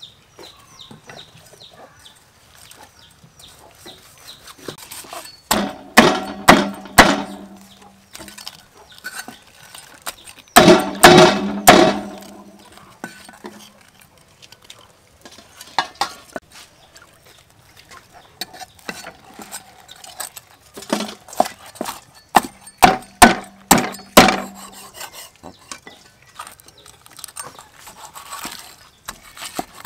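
Meat cleaver chopping roasted pork head on a thick round wooden chopping board: bursts of several quick, hard chops, about six and eleven seconds in and again from about twenty-one to twenty-four seconds, with a few single strikes between. The heavier blows leave a short low ring from the board.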